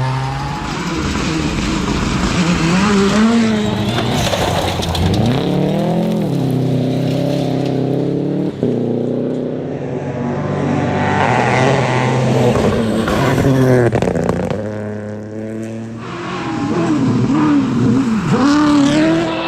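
Rally car engine run hard at full throttle, its pitch climbing and dropping again and again through gear changes and lifts, with quick up-and-down revs near the end.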